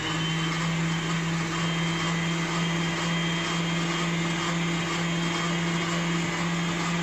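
Electric stand mixer running steadily at high speed, its whisk beating a thick strawberry flan and whipped-cream mixture: an even motor hum and whine with the whirr of the whisk in the bowl.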